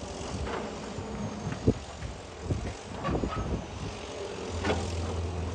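Excavator diesel engine running while its hydraulic grab handles broken concrete, with several knocks and clunks of concrete and steel, the loudest about a second and a half in. The engine hum deepens and grows steadier near the end.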